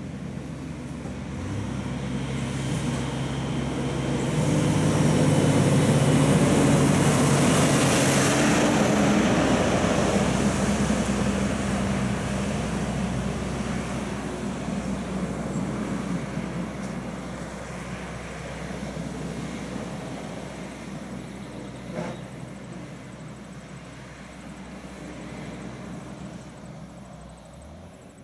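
DAF XF truck with a refrigerated trailer driving past: its diesel engine running steadily with tyre noise, building to loudest about six seconds in, then fading as it drives away. A single sharp click comes near the end.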